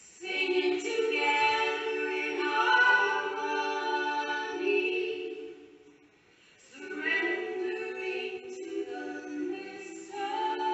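Choir singing a slow song in long held notes, breaking off briefly about six seconds in and then coming back in.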